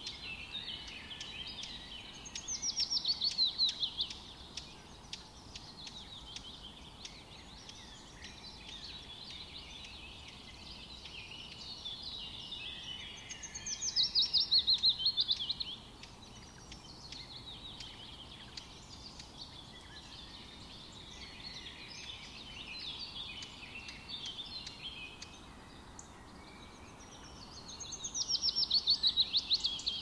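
Songbirds singing in a forest: steady chirping from several birds, with one loud song of rapid notes falling in pitch that comes three times, a few seconds in, about midway and near the end.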